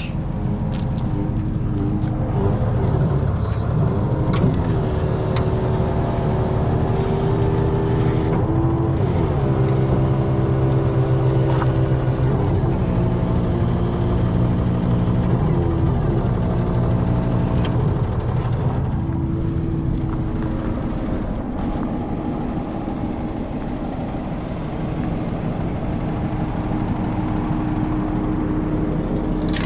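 Diesel engine of a 2013 Freightliner crane truck running, its speed rising and falling several times.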